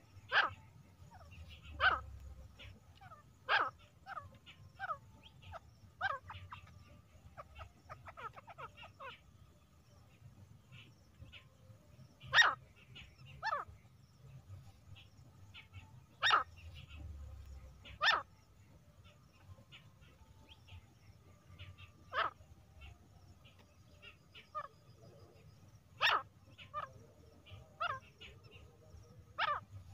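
Female grey francolin (teetar) calling: short, sharp call notes repeated at irregular intervals of one to a few seconds.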